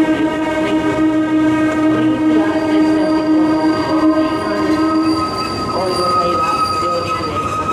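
Kurobe Gorge Railway trolley train running with a loud metallic squeal of several steady held tones over the rumble of its wheels, as it slows toward a station. The lowest squeal tone stops about five seconds in, and a higher one comes in around the middle.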